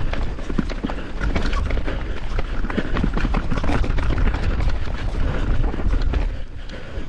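Mountain bike clattering over a rough, muddy trail: rapid, irregular knocks and rattles from the bike and tyres over a low rumble of wind on the microphone.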